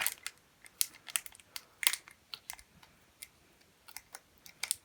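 A Pokémon booster pack's foil wrapper and cards being handled by hand as the pack is opened: short, irregular crinkles and ticks.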